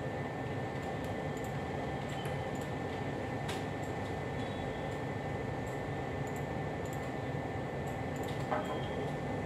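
Steady room noise with a thin, steady high whine, and a few faint, scattered clicks.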